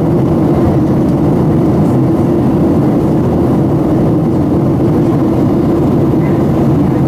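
Steady cabin noise inside a Boeing 737-700 in flight: its CFM56 jet engines and the airflow over the fuselage make an even, loud noise, heaviest in the low range.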